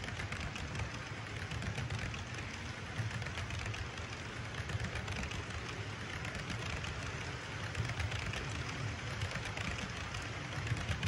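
HO-scale model tank cars rolling past on track: a steady rattling run of small wheels on rails, with many fine clicks.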